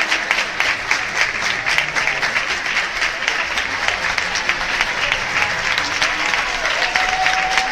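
Theatre audience applauding: dense, continuous clapping from a large crowd.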